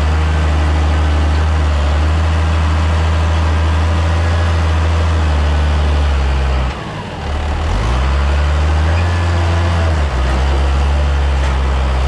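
Massey Ferguson tractor's diesel engine running steadily under the driver's seat. Its note dips briefly about two-thirds of the way through, then picks back up.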